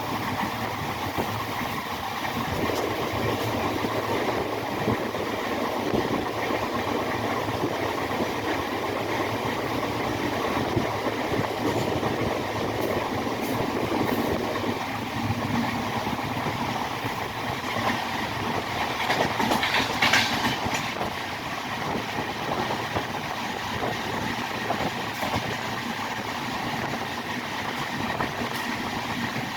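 Train running along the track, a continuous rumble of wheels on rails with clickety-clack, and a brief louder, higher-pitched screech about twenty seconds in.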